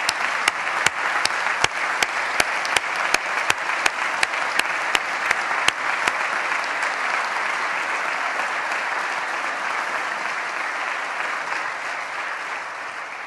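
An audience applauding, with one person's sharp claps standing out in an even beat, nearly three a second, for the first half. The applause then slowly dies down near the end.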